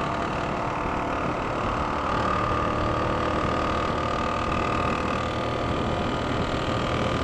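Suzuki SV650S V-twin engine running at motorway speed under steady wind and road noise. It sounds rough, with a knock that the rider takes as a sign of engine trouble.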